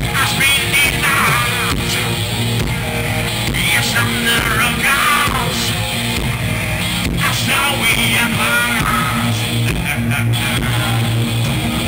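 Live rock band playing loud, with electric guitars and bass.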